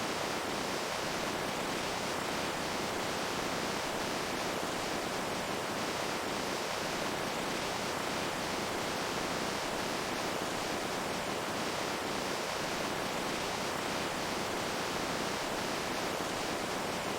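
Running water, a steady even hiss with faint scattered splashes, unchanging throughout.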